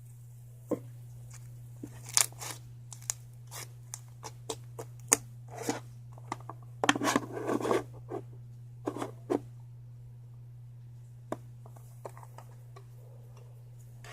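Close-up handling sounds: irregular sharp clicks and crackles, with a denser crinkling stretch about halfway through, over a steady low hum.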